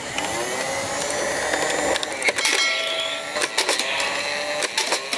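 Battery-powered yellow plastic toy rifle firing a continuous burst: a steady motor whirr with irregular sharp clicks.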